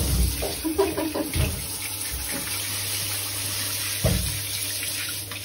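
Shower water running steadily and splashing onto a shower tray, with a few low thumps near the start, about a second and a half in, and about four seconds in.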